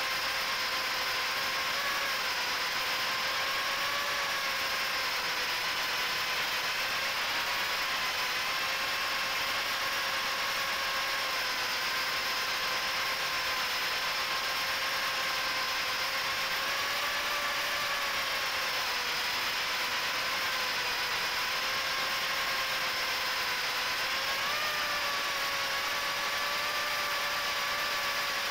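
Micro FPV quadcopter's HGLRC 1104 7500kv brushless motors and Gemfan 3018 props whining steadily over a hiss of prop wash, heard from a camera on board. The pitch wavers gently with throttle and lifts briefly about 24 seconds in.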